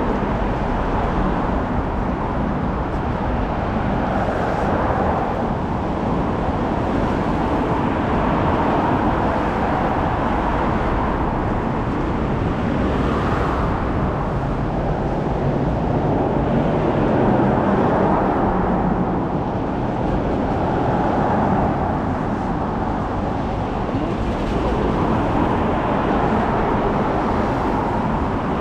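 City road traffic passing in the rain, a steady hiss of tyres on the wet road that swells and fades every few seconds as cars go by.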